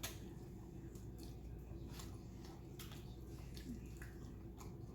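Faint chewing: scattered soft wet mouth clicks and smacks from eating a sauced chicken wing, over a low steady hum.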